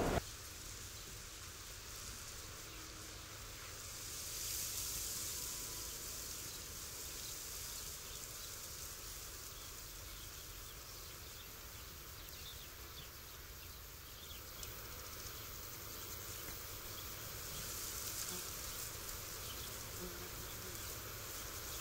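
Faint steady hiss over a low hum, swelling gently about four seconds in and again near the end.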